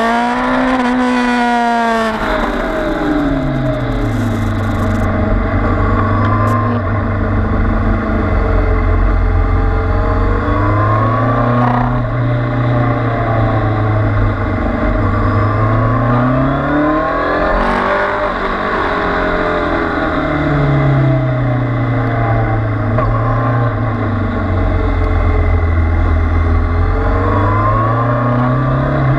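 Kawasaki Z800's inline-four engine heard from onboard on a track lap. The revs climb and drop again several times as the bike accelerates out of corners and slows into them, with wind noise over the bike.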